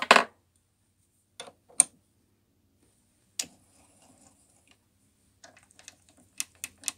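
Metal clicks and clanks of hand tools working the clamps on a mini lathe's toolpost as they are tightened. There is a loud clank right at the start, a few single clicks, then a quick run of clicks near the end.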